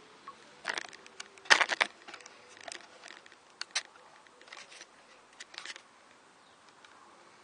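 Camera handling noise: irregular clicks and rustles from the camera or its tripod being moved, loudest in a quick cluster about one and a half seconds in, then scattered clicks over a quiet outdoor background.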